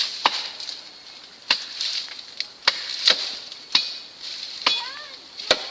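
Blades chopping into the wood of a tree, seven or eight sharp strikes at an irregular pace of roughly one a second.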